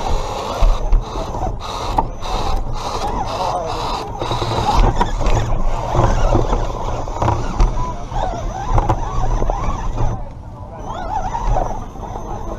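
Redcat Gen7 Pro RC rock crawler heard from a camera mounted on the truck: its drivetrain running and tyres scrabbling over rock, with a run of knocks in the first few seconds.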